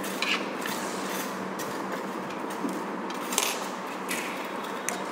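A few light metallic clicks and scrapes as a thin metal pick works at the barrel of a microscope objective lens, over a steady background hiss and hum.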